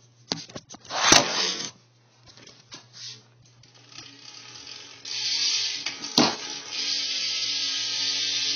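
BMX bike's drivetrain turned over by hand: a few clicks and a short rattle, then from about five seconds in the rear wheel spins and the Cinema cassette hub and KMC chain run with a steady buzzing whir.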